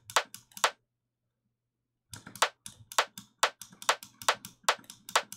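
Short, dry FM-synthesised rimshot-style percussion hits from Ableton Operator, played back over and over at about four hits a second. The hits stop less than a second in and start again about two seconds in.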